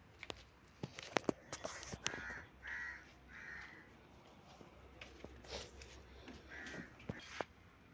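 A crow cawing, three caws in quick succession about two seconds in and another near the end, among scattered sharp clicks and knocks.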